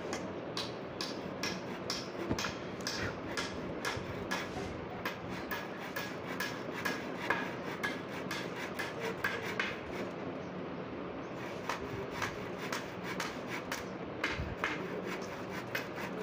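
Handsaw cutting through a wooden formwork plank in steady back-and-forth strokes, about two a second, with a short pause about ten seconds in.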